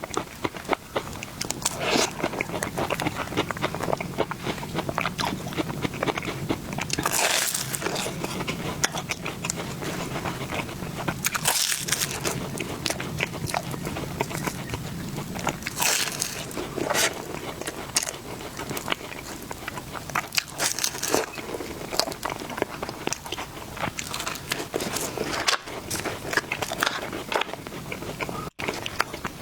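Close-miked eating: repeated bites and chewing with crisp, crackly crunches all through, louder crunches every few seconds.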